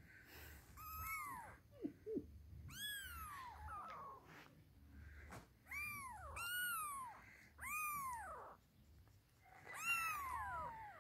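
Very young Persian kittens mewing: about six thin, high cries, each rising and then falling in pitch.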